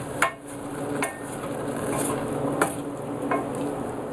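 Wooden spoon stirring diced green bell pepper, onion and raisins in a stainless steel saucepan, knocking against the pan about four times, over a steady sizzle of the vegetables cooking in oil.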